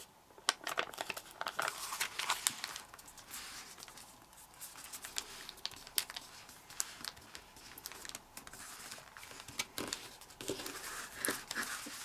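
Sheet of origami paper rustling and crinkling in the hands as it is folded and creased flat against a tabletop by fingers, with irregular small crackles and soft scrapes.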